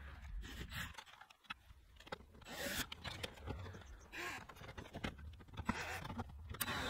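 Plastic lower steering-column shroud being refitted and its screws driven in with a cordless drill-driver: a few short bursts of scraping, with scattered clicks.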